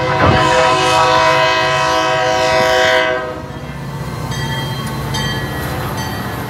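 A Metra diesel locomotive's air horn sounds one long blast of about three seconds, several tones held together, and cuts off. The train then rumbles past with clicking wheels and short high dings from the crossing bell.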